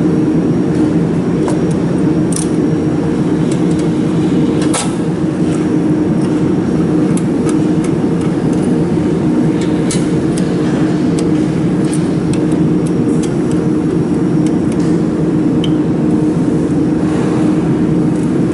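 Laser machine's cooling fans humming steadily, with scattered light clicks of a hex key and small metal parts being handled on the laser cavity.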